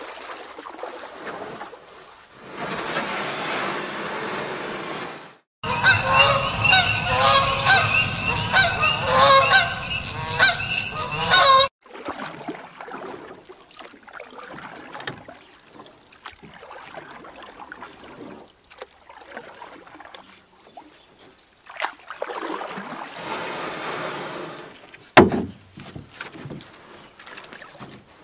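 A flock of geese honking, many overlapping honks for about six seconds, cutting in and out abruptly about six seconds in. Before it comes a few seconds of steady rushing noise, and after it fainter scattered clicks and rustles.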